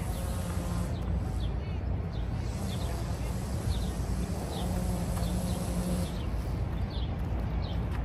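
Small birds chirping in short repeated notes over a steady low rumble of city background noise.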